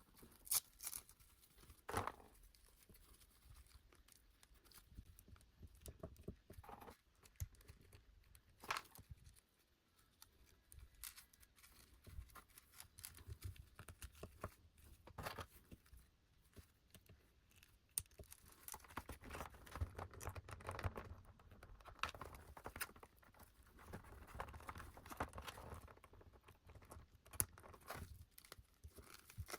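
Faint handling of a small boxed doll and its packaging: scattered light taps and clicks, with a longer stretch of soft rustling and crinkling in the second half.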